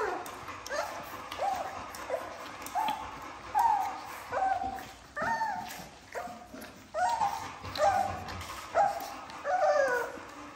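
A litter of four-week-old American bully puppies whining and yipping while jostling at a shared food bowl: short pitched cries, one or two a second, many falling in pitch.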